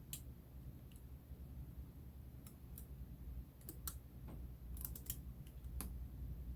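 Faint, irregular small clicks and taps of a phone's internal connectors and parts being handled and pressed into place, with a cluster of quick clicks a little past the middle. A faint low hum runs underneath.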